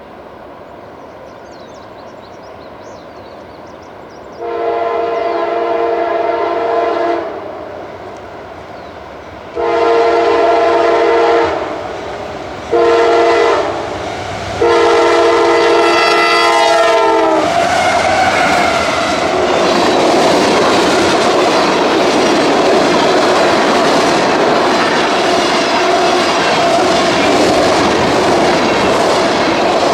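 Freight locomotive air horn sounding the grade-crossing signal: two long blasts, a short one and a long one, with the pitch dropping at the end of the last blast. The train then rolls past with a steady rumble and wheel clatter.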